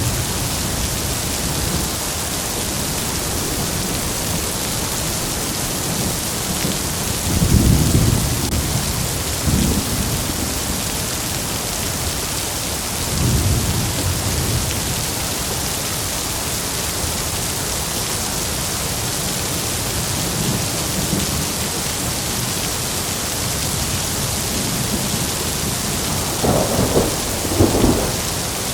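Heavy rain falling steadily, with thunder: low rolling rumbles about a third of the way in and again around the middle, then two sharper, closer claps near the end.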